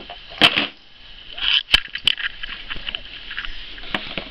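A baby handling a plastic toy, with a few sharp knocks as it strikes something hard, and a brief high little vocal sound in between.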